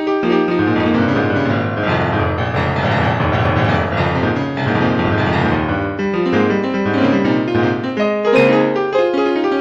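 Piano music: sustained chords and notes, with a dense, full passage in the low register through the middle.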